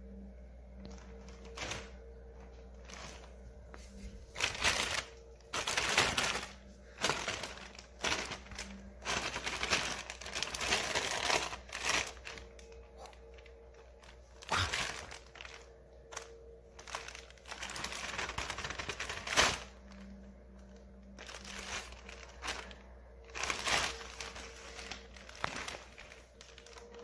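Thin plastic bag crinkling and rustling in irregular bursts as a kitten moves around inside it.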